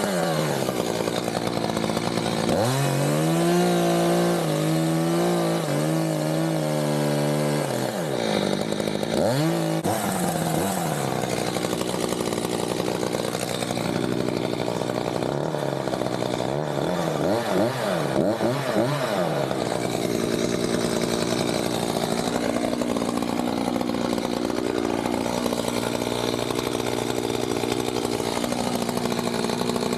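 Chainsaw engine running at high revs, held steady for a few seconds and then revved up and down several times.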